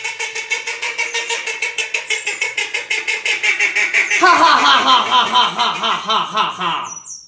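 White domestic duck quacking in a fast, even series of about six or seven calls a second. About four seconds in the calls grow louder and harsher, then stop just before the end.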